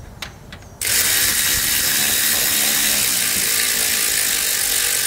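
Cordless 3/8-inch electric ratchet with a 16 mm swivel socket running a bolt on the alternator mount: a loud, steady whir that starts abruptly about a second in.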